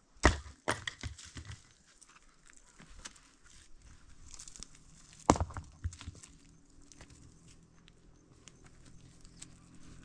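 Footsteps on stony, grassy ground: a quick run of sharp crunches and knocks in the first second and a half, then one loud crunch about five seconds in, with small scattered clicks between. A faint low hum comes in from about halfway.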